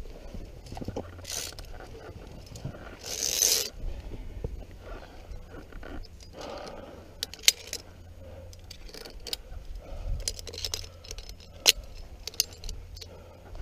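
Via ferrata lanyard carabiners clinking and scraping on the steel safety cable during climbing: a loud scrape about three seconds in, then scattered sharp metallic clicks, the loudest about halfway through and again near the end.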